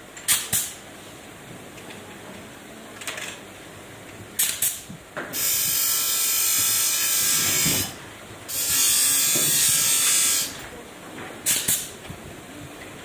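A small power tool whirring in two runs of about two and a half seconds each, about five and eight seconds in, with sharp metallic clicks before and after.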